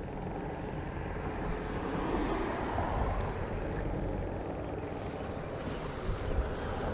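Steady outdoor background noise: a low rumble under a hiss, with no distinct events.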